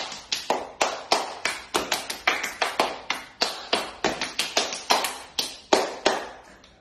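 Rapid run of hand claps and slaps as two people smack their hands together in a fast clapping-game routine, several sharp smacks a second, tailing off near the end.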